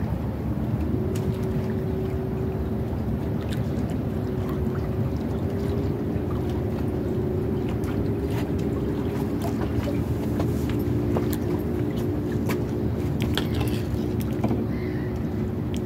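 A motor's steady drone with a constant hum over a low rumble, with scattered light clicks.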